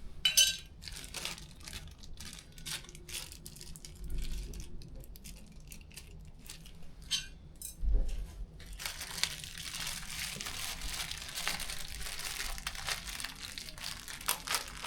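Packaging crinkling as lock parts are handled and unwrapped, with a few sharp clicks and two dull knocks in the first half, then steady crinkling from about nine seconds in.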